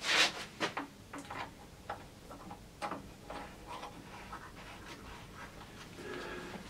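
Handling noise from a homemade wooden bandsaw's table trunnions as they are rocked and a star knob is fitted: a short rustle at the start, then scattered light clicks and taps of wood and knob.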